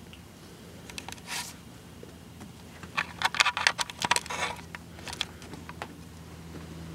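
Handling noise: scraping and rustling, with a dense flurry of clicks and scratches from about three to four and a half seconds in, over a steady low hum.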